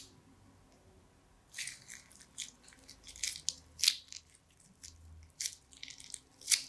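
A plastic bag of pink slime being squeezed and emptied into a glass dish of liquid slime: irregular wet crackles and squelches, starting about a second and a half in.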